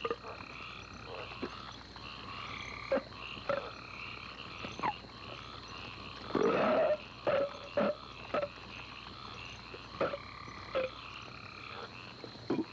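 Men belching over and over: about a dozen short burps at uneven gaps, with one long, loud belch about six seconds in. Under them runs steady night-time outdoor ambience.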